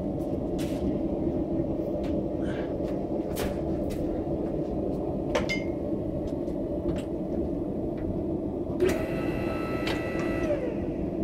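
Steady low hum of a hydraulic ironworker's electric pump motor running, with scattered light clicks and knocks. Near the end, a higher whine made of several steady tones lasts about two seconds, then falls in pitch and stops.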